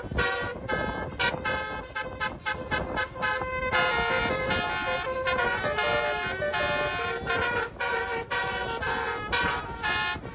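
Bus telolet 'basuri' horn playing a quick tune of short multi-tone notes, over a steady held tone.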